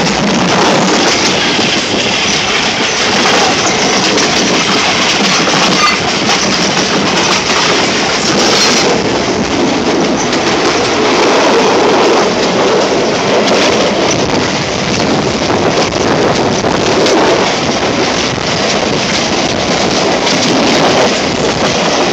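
Train running along the track: a steady loud rush and rumble of wheels on rail and passing air.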